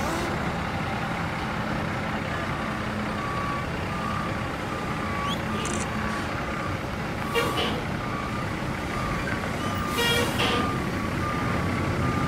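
International Eagle tractor-trailer reversing: its diesel engine running low and steady under a back-up alarm that starts beeping about two seconds in and keeps up a regular beep through the rest. A couple of brief louder sounds break in partway through.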